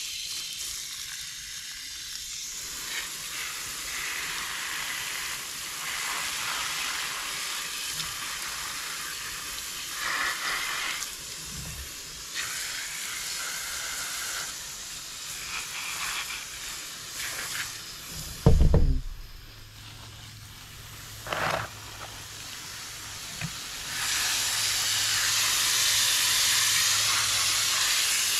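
Water spraying hard from a hose, rinsing the dirt out of a robotic pool cleaner's filters: a steady hiss that gets louder near the end. There is one loud thump about two-thirds of the way in.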